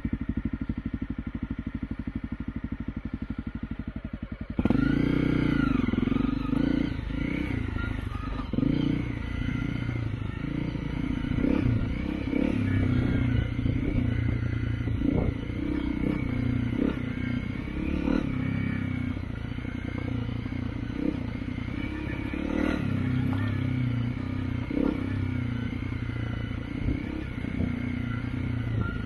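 Honda CRF250 Rally's single-cylinder engine running at low revs, then about four and a half seconds in it suddenly gets louder, with the revs rising and falling as the bike is ridden along a rough dirt trail.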